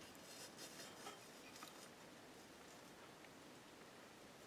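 Near silence, with a few faint, short clicks of small parts being handled.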